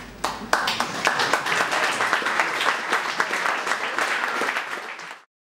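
Audience applauding: a dense patter of many hands clapping that begins just after the start and cuts off abruptly near the end.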